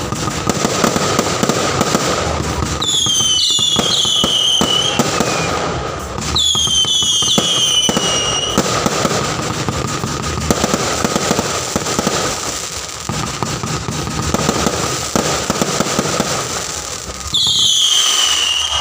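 Fireworks display: dense crackling and popping throughout, with whistling fireworks whose whistles fall in pitch, heard about three seconds in, about six seconds in, and again near the end.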